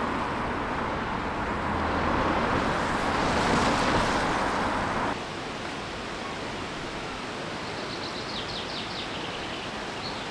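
Steady rushing outdoor noise that cuts abruptly, about five seconds in, to quieter countryside ambience. A small songbird sings quick runs of chirps near the end.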